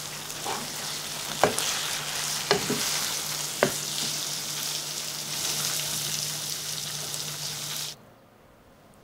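Chicken pieces and onions sizzling in a frying pan while a spatula stirs them, with three sharp knocks of the spatula against the pan in the first few seconds. The sizzling cuts off abruptly near the end.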